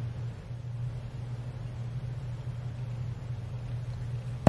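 Room tone: a steady low hum with faint hiss, then a single sharp click at the very end.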